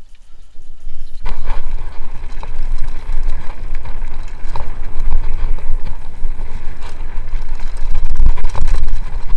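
Mountain bike rattling and bumping over a rough dirt trail at speed, with wind buffeting the microphone as a heavy low rumble. The noise jumps up sharply about a second in as the bike picks up speed downhill, with scattered knocks from the bumps.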